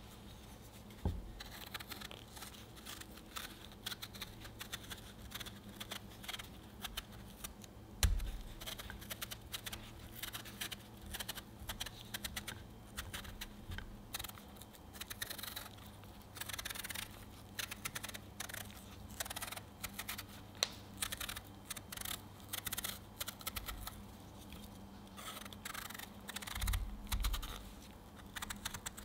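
Paring knife cutting the peel off a firm peach in many short, crisp scraping strokes, with a few dull knocks as the fruit is handled over a wooden cutting board.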